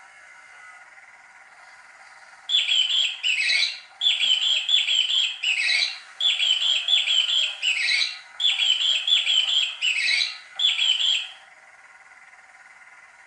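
Battery-powered motorized cat toy disk playing its electronic squeak sound: bird-like chirps in evenly repeated phrases, each a few short chirps and a falling squeak. The phrases start about two seconds in and stop shortly before the end, over a faint steady hum.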